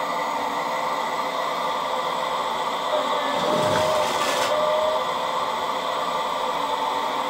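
Radio-controlled Volvo excavator's hydraulics and motors whining steadily as the boom and bucket work. About three and a half seconds in, a lower tone slides down in pitch under a brief hiss as the bucket digs down into the soil.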